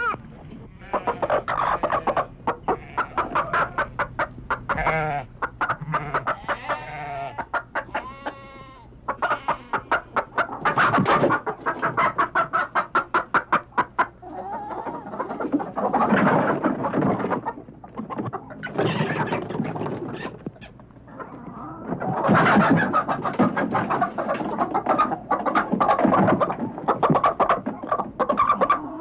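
Barnyard chickens clucking and cackling in quick runs of short notes, amid other farm-animal calls, with faint high chirping in the second half.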